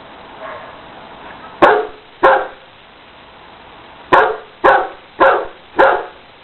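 A dog barking: two barks, a pause of about two seconds, then four more barks in quick succession about half a second apart.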